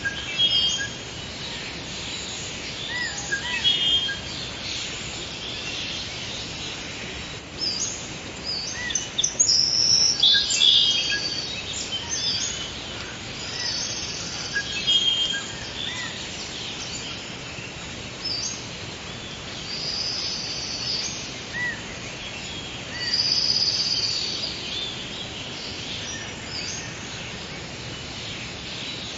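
Forest ambience of several birds singing and chirping, with short trills and whistled calls coming every second or two over a steady background hiss.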